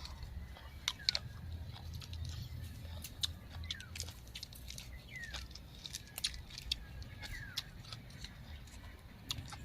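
Chewing crunchy raw vegetables, with many sharp mouth clicks and crunches. Short falling bird chirps sound in the background about once a second.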